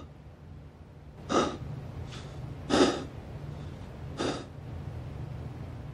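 A person's short breathy exhalations, about five quick puffs roughly a second apart, over a low steady hum.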